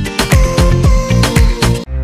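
Background music with a steady beat and bass, about two to three strong hits a second. It cuts off abruptly near the end, and a low sustained chord begins.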